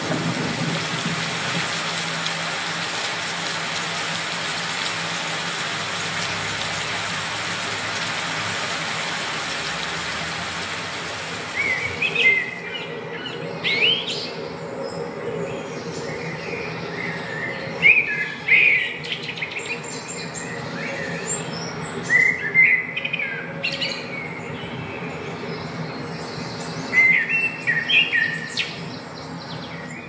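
Nature-sound demo played back through a Sony HT-A5000 soundbar: a steady, even hiss of noise for about the first twelve seconds, then birds chirping in short runs every few seconds over a quieter background.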